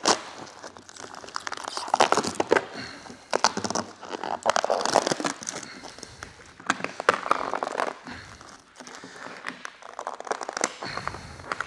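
Clear plastic paint protection film crinkling and crackling in irregular bursts as it is peeled off the truck's paint and bunched up in the hands.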